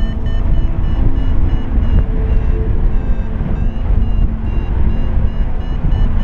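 Paraglider's variometer beeping in short, quick repeated beeps, about two to three a second, with the pitch wavering down and back up around the middle: the intermittent beep a vario gives in rising air. Heavy wind buffeting on the microphone runs underneath.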